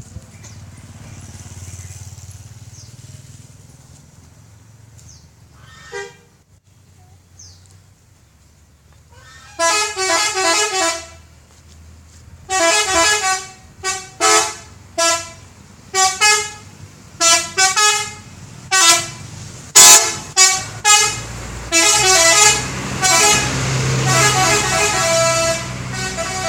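Bus telolet horn, a multi-note musical horn, playing a long run of quick melodic toots that step between pitches. It starts about nine and a half seconds in and goes on in short bursts to the end. A low rumble sits underneath and swells near the end.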